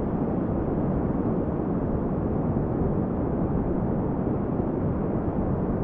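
Steady rushing noise, even and unbroken, with no voice or music.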